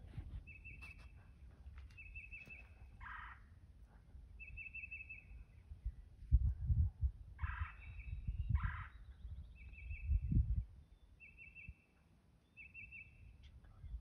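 Wild turkey gobbling three times, a rattling call heard at about 3 s, 7.5 s and 8.5 s. Between the gobbles a songbird repeats a short high trill every second or two, and low rumbling hits the microphone now and then.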